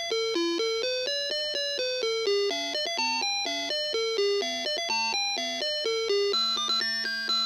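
Small World Worker DX karakuri alarm clock playing its electronic chime melody: a steady run of bell-like notes, about four a second, with a longer held low note near the end.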